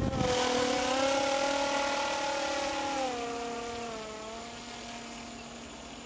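The motor and propeller of a small radio-controlled Magnus-effect aircraft whine steadily in flight. The pitch steps down a little about three to four seconds in, and the sound fades as the plane flies away. A brief rush of noise comes at the very start.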